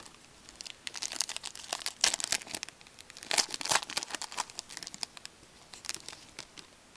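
A hockey card pack wrapper being torn open and crinkled by hand, in several crackly bursts with short pauses between them.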